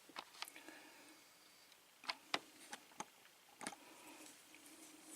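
Faint, scattered clicks and taps of small lock parts and tools being handled as the top pins are taken out of a disassembled Lockwood padlock, about seven clicks in all, the sharpest a little past two seconds in.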